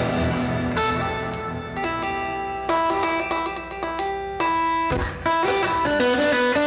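Electric guitar played through a Headrush pedalboard's amp model with an air reverb: a ringing chord, then a melodic line of single picked notes that ring into each other. There is a short low knock about five seconds in.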